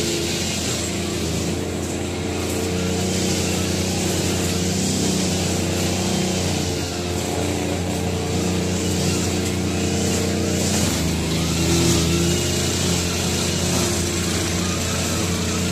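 Backpack brush cutter's small petrol engine running steadily while cutting grass, its speed shifting now and then as the cutter works.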